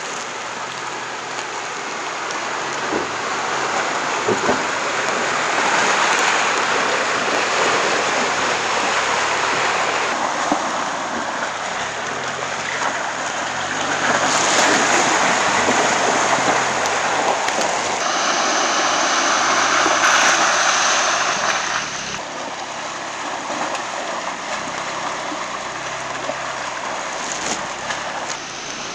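Muddy water sloshing and splashing as a Ford Bronco Everglades wades through flooded ruts, with the 2.3-litre EcoBoost four-cylinder faint underneath. The sound shifts abruptly several times between shots.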